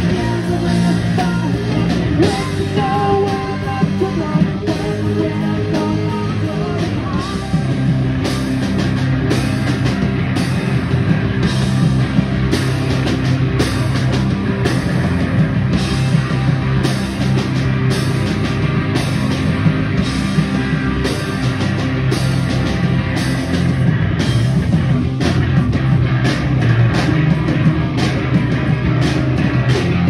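Post-hardcore band playing live: distorted electric guitars, bass and drum kit, with a woman singing at first. After several seconds the singing stops and a cymbal is struck on a steady beat.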